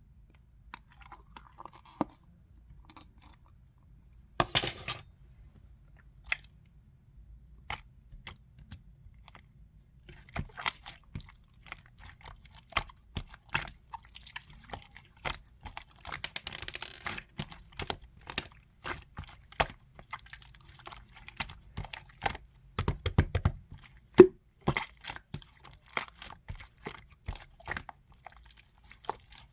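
Slime being squeezed and kneaded by hand, giving many small sticky clicks and pops, sparse at first and then in quick runs.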